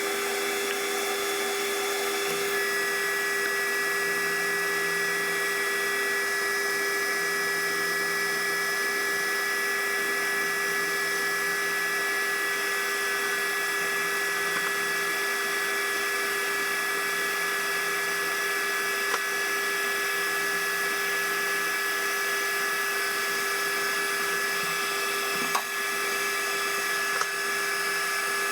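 Metal lathe running steadily while turning down a 4140 steel shaft, with a constant whine. A higher steady tone joins about two and a half seconds in.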